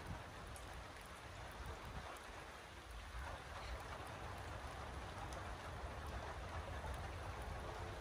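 Steady rain falling: an even hiss with scattered drop ticks and a low rumble beneath.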